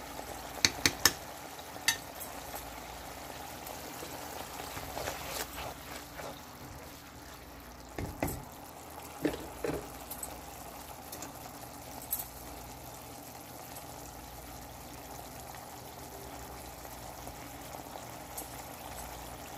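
Watery turmeric, onion and ginger-garlic masala bubbling and sizzling steadily in a wok as it is cooked down, with a few sharp clicks scattered through, a handful about a second in and a few more around the middle.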